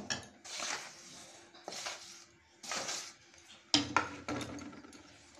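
Metal spatula scraping and stirring thick rice-flour dough in a metal pan, several short scrapes, then a few sharp metallic clinks a little under four seconds in.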